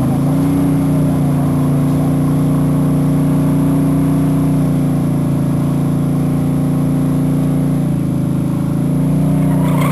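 Drag car's engine revving up and then held at steady high revs through a burnout at the start line, the rear tyres spinning and smoking.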